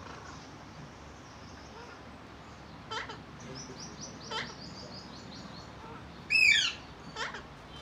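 A parrot calling: a few short squawks, a quick run of high twittering chirps in the middle, and one loud screech about six seconds in.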